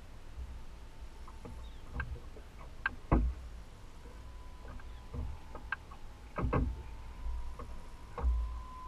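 Scattered knocks and clicks on a fiberglass boat while a striped bass is fought on rod and reel, a few with dull thuds, over a faint steady whine that grows louder near the end.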